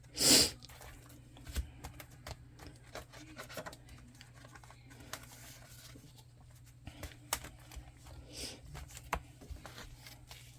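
A short loud burst of noise at the very start, then light paper and plastic rustling with scattered small clicks as cash envelopes and challenge sheets are handled, over a faint steady hum.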